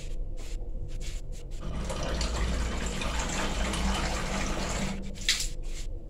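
Water running from a tap for a few seconds, starting about a second and a half in and stopping about five seconds in.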